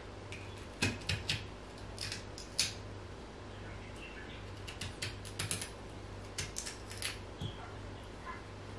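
A knife cutting into a raw black radish: irregular crisp clicks and crunches in small clusters, over a low steady hum.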